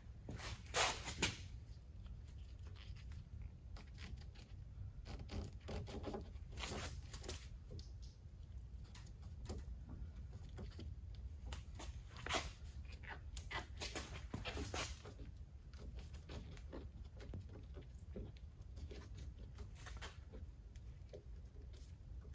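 Hand-work noises: a rubber trunk weatherstrip being handled and pressed into the deck lid's channel, and blue painter's tape pulled and pressed over it, as a scatter of short rustles and rasping tearing sounds over a low steady hum.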